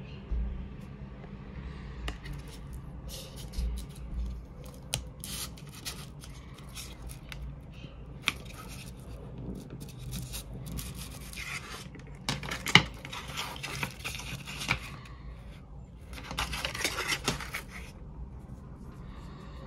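Hands handling cardboard and paper packaging: scattered taps and clicks with irregular bursts of rustling and scraping, busiest around the middle and again near the end.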